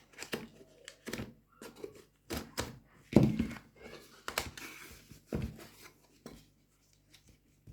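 The packaging of a hardware-wallet box is torn and pried open by hand after its pull strip broke. There is a series of rips, crinkles and small knocks, the strongest rips about three, four and five seconds in.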